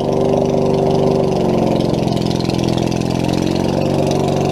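Riding lawnmower's small engine running steadily, its pitch sagging slightly and coming back up.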